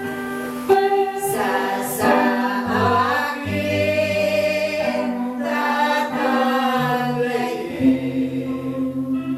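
A group of voices singing praise together, with long held notes and sung syllables.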